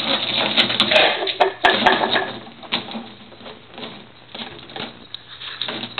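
German shorthaired pointer attacking a drain tube: irregular rattling, scraping and clicking of the tube, busiest in the first two seconds and quieter after that.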